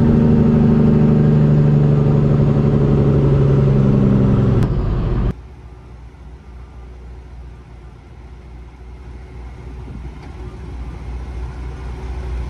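A loud, steady, low droning intro sound with a fixed pitch for about five seconds, cutting off abruptly. It gives way to the quieter low rumble of a heavy wrecker's diesel engine running, which grows slightly louder near the end.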